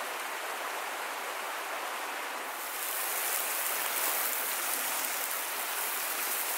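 Meat sizzling over a campfire: a steady, rain-like hiss that turns brighter and a little louder about two and a half seconds in.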